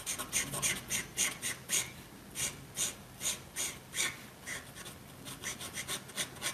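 Broad paint marker rubbed back and forth across paper, filling in a solid black area, in quick strokes about three a second; a sound the artist herself calls unpleasant.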